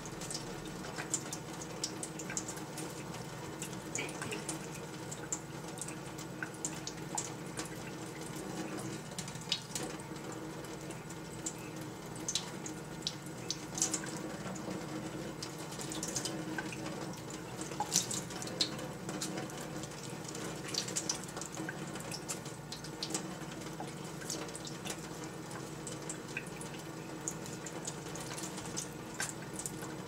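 Kitchen faucet running a thin stream of water into a plastic funnel in a stainless-steel sink, with scattered short splashes and ticks as a green-cheeked conure bathes and flutters in the stream.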